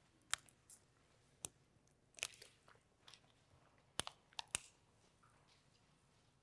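Faint, scattered clicks and short crinkling rustles of handling in a quiet room, about a dozen over several seconds, with the sharpest few close together about four seconds in.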